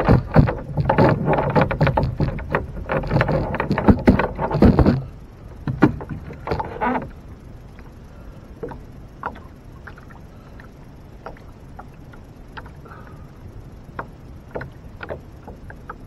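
A busy flurry of knocks, scrapes and splashing on a small boat for about five seconds, then only an occasional light click or tap.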